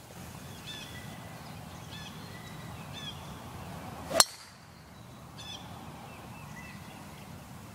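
A golf club striking a ball on a tee shot: one sharp crack about four seconds in.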